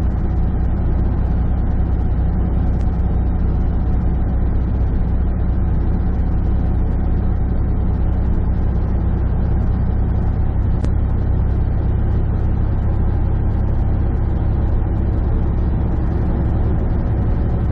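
Semi truck's diesel engine running steadily, heard from inside the cab, with tyre and road noise, pulling slowly up a hill.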